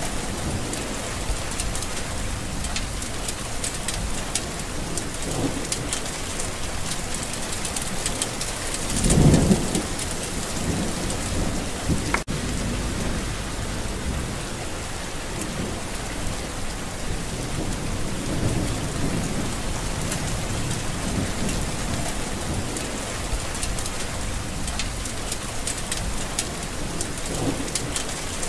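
Steady heavy rain falling with a constant patter. About nine seconds in, a low rumble swells up briefly and is the loudest moment; the sound cuts out for an instant about twelve seconds in.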